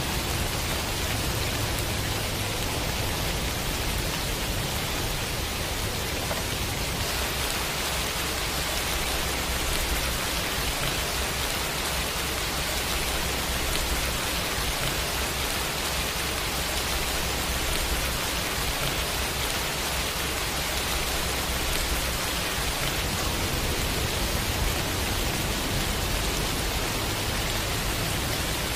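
Steady rain falling on wet pavement: an even hiss of many drops splashing, with a faint low rumble underneath.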